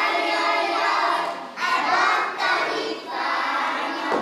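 A group of young children singing together, in phrases broken by short pauses about one and a half and three seconds in.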